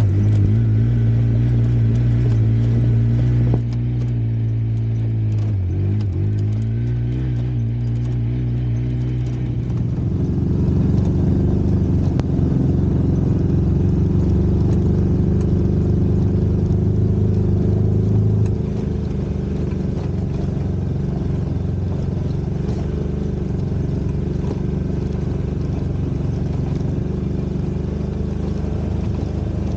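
Side-by-side UTV engine running while driving along a trail, its pitch dipping as it slows and picking back up about five to eight seconds in, then holding steady.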